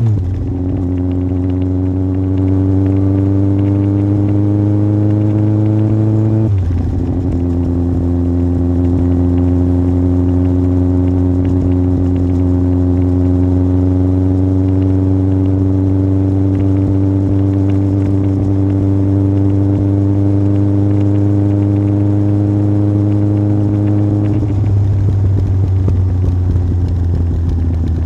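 Yamaha Fazer 1000's inline-four engine through an aftermarket MIVV exhaust, pulling under steady throttle, its pitch rising slowly. The revs drop sharply at the start and again about six and a half seconds in, as upshifts, and the note changes once more near the end.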